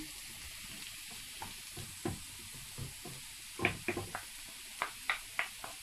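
Diced potatoes and red pepper sizzling in oil in a non-stick frying pan, while a wooden spoon stirring them knocks and scrapes against the pan in scattered clicks.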